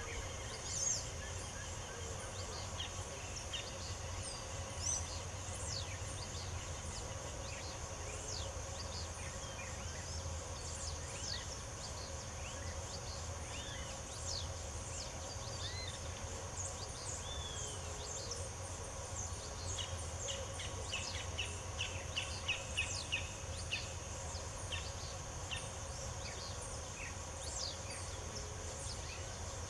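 Several wild birds chirping and singing in short, scattered calls over a steady high insect buzz and a low background rumble.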